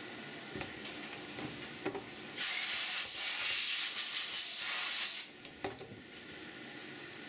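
A loud, steady hiss of spray from the CNC mill's coolant nozzles, lasting about three seconds in the middle and cutting off suddenly, with a few light clicks and drips before and after.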